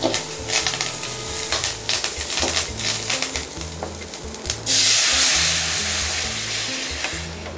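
A rasam tempering of mustard seeds, shallots, green chilli and curry leaves sizzling in hot oil in a metal kadai, with a metal ladle scraping and clicking against the pan. About four and a half seconds in, the ground tomato rasam liquid is poured into the hot oil and sets off a sudden loud hiss that slowly dies down.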